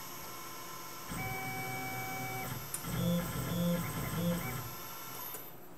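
Tormach PCNC 1100 CNC mill running a short G-code program, its stepper-driven axes whining as they move. A steady whine starts about a second in, followed by three short moves in quick succession, and it stops shortly before the end.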